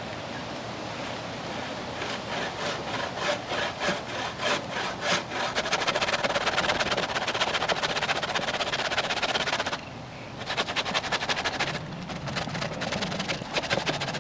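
Hand saw cutting through a dead tree branch: rhythmic back-and-forth strokes, slower at first and then fast and steady, with a short pause about ten seconds in before the sawing resumes.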